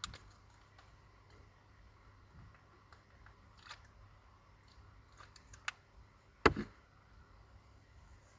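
Small clicks and taps from handling a plastic facial-cleanser bottle, with one sharp knock about six and a half seconds in, over a faint low hum.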